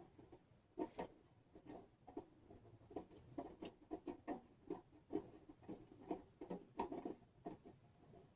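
Light, irregular clicks and taps of titanium wood-stove parts being handled and fitted together, about two or three a second.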